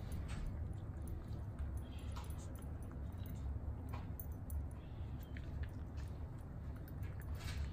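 Japanese Spitz eating chicken tenderloin treats from a stainless steel bowl: scattered soft clicks and crunches of chewing, with a slightly louder burst of it near the end, over a low steady hum.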